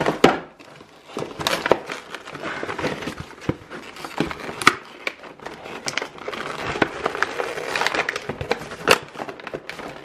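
Cardboard toy box and clear plastic blister tray being handled and opened: irregular crinkling, rustling and sharp little clicks and knocks of cardboard and plastic.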